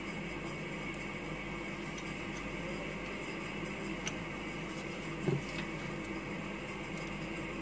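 Steady mechanical hum with a thin whine, as from a cordless handheld sewing machine's small motor running. A sharp click about four seconds in, and a brief low thump about a second later.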